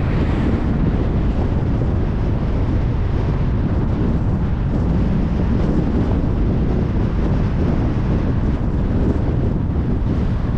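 Steady road noise of a car travelling at highway speed: tyres on the road and wind, an even low rumble with a hiss above it.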